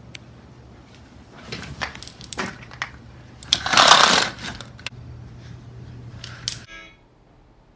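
Light metallic clinks and jangling, with a louder rushing clatter about three and a half seconds in that lasts under a second.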